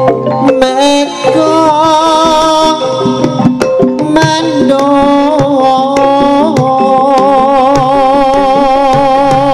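Campursari music played live: Javanese-style drum strokes and percussion under a long held, wavering melody line.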